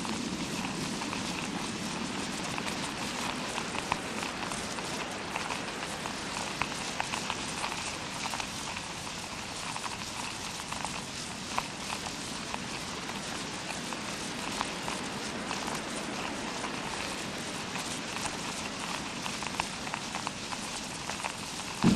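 Fake rain sound effect: a steady patter of countless small ticks over an even hiss, imitating rain falling on a surface. Right at the end the sound jumps abruptly louder with a deeper rush.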